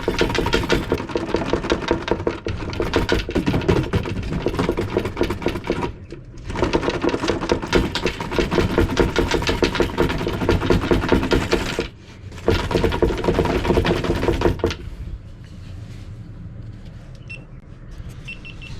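RC car running with a fast, dense mechanical rattle. It dips briefly about six and twelve seconds in and runs quieter over the last few seconds.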